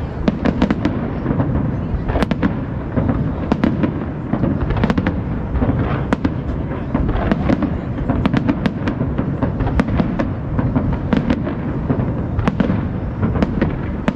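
Aerial fireworks display: many shells bursting in quick succession, making a continuous loud rumble with dense sharp cracks throughout.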